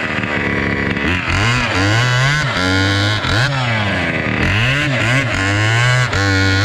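Two-stroke chainsaw engine with a modified exhaust, revved up and down again and again in quick blips, its pitch rising and falling more than once a second.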